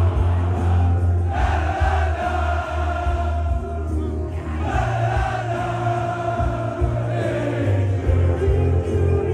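A large crowd of football fans singing together along with loud music that has a booming bass. The massed voices swell into two long sung phrases, one about a second in and one about halfway through.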